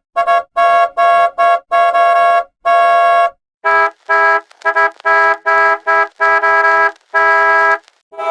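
Bus horn honking in a rhythmic string of short blasts, each phrase ending in a longer held blast. A second phrase follows about halfway through, slightly higher in pitch.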